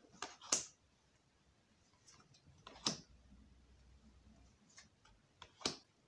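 Fortune-telling cards being drawn and laid down one at a time on a wooden table: short soft slaps and slides of card on wood, two close together just after the start, one about three seconds in and one near the end.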